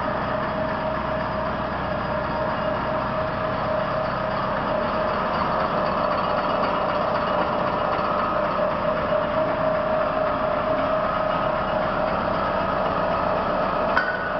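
Hobart 4352 mixer-grinder's electric motor and drive running steadily with a constant whine, and a click near the end.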